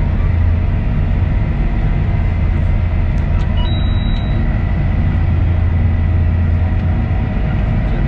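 Claas Axion 930 tractor's six-cylinder diesel engine running steadily, heard inside the cab: a constant low drone with a thin, steady high whine above it.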